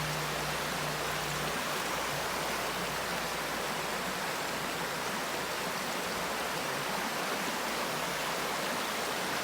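River water rushing steadily in an even, unbroken hiss, with a faint low hum in the first second and a half.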